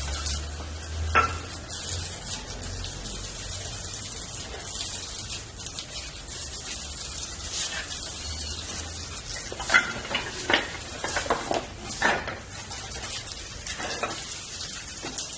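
Firewood burning with wet wood: a steady hissing sizzle with sharp crackling pops, one about a second in and a run of several pops about two-thirds of the way through.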